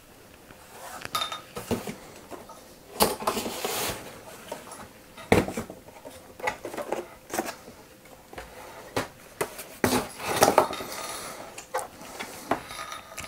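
Cardboard packing inserts being pulled off a laptop and put aside: irregular knocks, scrapes and rustling of cardboard and packing sheet, with the sharpest knocks about three seconds in, five seconds in and ten seconds in.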